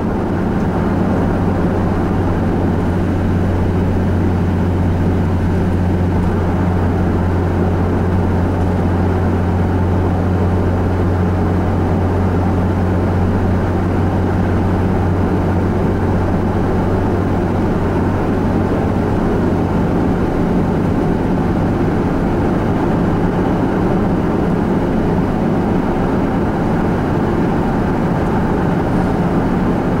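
Steady engine and tyre noise of a car cruising on a highway, heard from inside the cabin. A low drone runs under it and weakens about two thirds of the way through.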